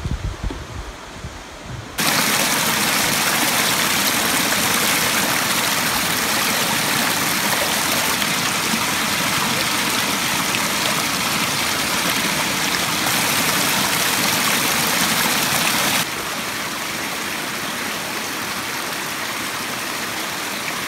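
Steady rushing of water over rocks in a creek, an even hiss that cuts in suddenly about two seconds in and drops a little in loudness later on. Before it comes a low rumble.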